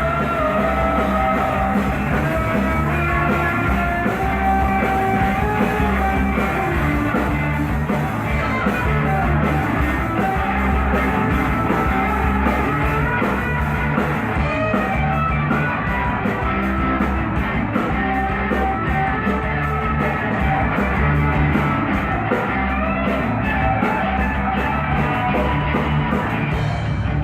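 Live rock band playing an instrumental passage, a melodic lead line over bass and drums.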